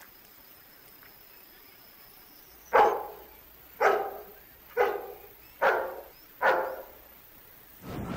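German shepherd barking five times, about a second apart, after a few seconds of faint hiss.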